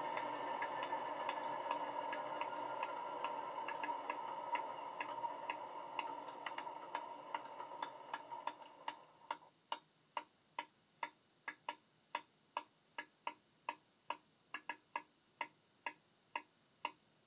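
Class 37 diesel engine sound from a model locomotive's LokSound sound decoder, played through its small speaker, running down and fading out over about nine seconds as the engine shuts down. Light, slightly uneven clicks continue about twice a second after the engine falls silent.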